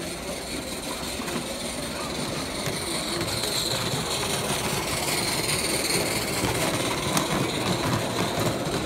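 Live-steam 16mm-scale model locomotives running, with the modified Mamod 0-6-0 hauling its coaches close by. Wheels clatter along the track and steam hisses, growing steadily louder.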